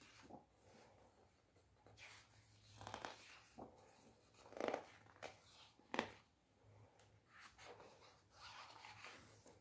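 Pages of a picture book being turned by hand: quiet paper swishes and rustles, with a sharper snap of a page about six seconds in.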